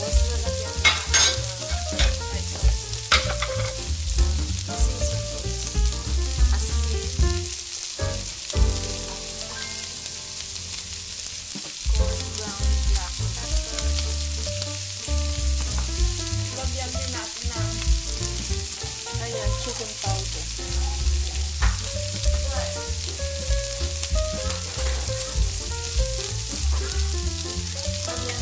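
Steak strips and sliced onions sizzling in a wok, with a few sharp spatula scrapes against the pan in the first few seconds.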